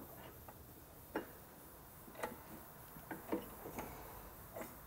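Faint, irregular clicks and light taps, about half a dozen, from parts being handled while the scooter engine's pivot bolt holes are lined up with the frame using a large screwdriver.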